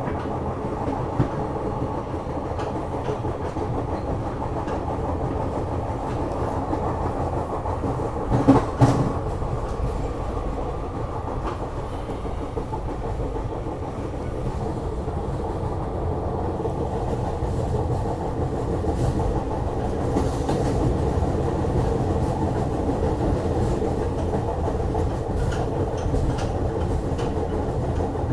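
Inside a moving SEPTA regional rail car: the steady rumble of the wheels running on the track, heard through the car body. A few sharp louder knocks come about eight and a half seconds in.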